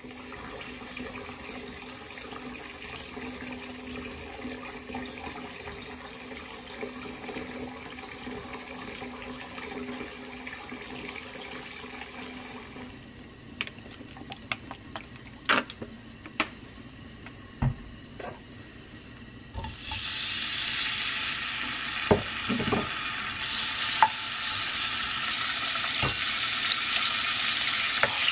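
A bath bomb fizzing in bathwater, with a low steady hum under the hiss. About 13 seconds in, a few sharp knocks and clicks as cooking oil is poured into a pot. From about 20 seconds in, pork belly sizzling in hot oil in the pot, stirred with a wooden spoon that knocks against it now and then.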